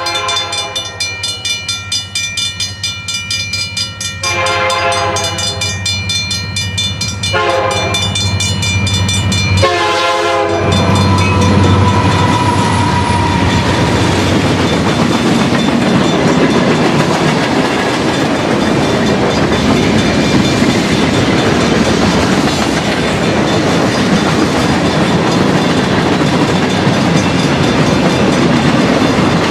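Diesel locomotive horn sounding the grade-crossing signal (long, long, short, long) over a ringing crossing bell, then the locomotive passing about ten seconds in, its engine rumble running into the steady rolling and clickety-clack of a long line of freight and tank cars.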